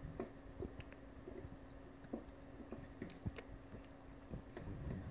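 Faint scattered light clicks and taps from handling a small plastic horse figurine and a pencil on a desk, over a steady low hum.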